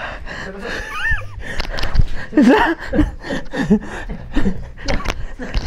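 High-pitched playful squeals and laughter with no clear words, mixed with a few sharp thuds.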